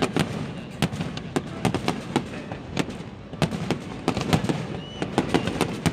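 Fireworks display: aerial shells bursting in a rapid, irregular string of bangs, several a second.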